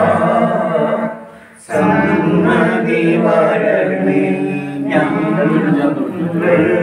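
Male voice chanting mantras in a steady, sung recitation, dipping briefly about a second in and then resuming.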